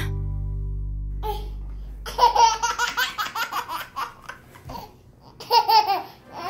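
A held music chord fades away, then a baby laughs in a run of quick bursts, pauses, and laughs again in a shorter burst near the end.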